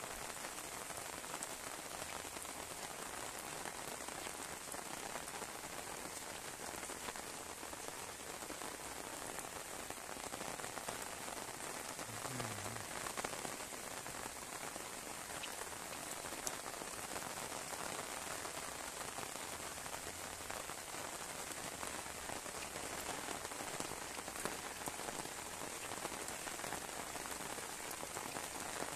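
Heavy rain pouring down steadily, an even, constant hiss of the downpour.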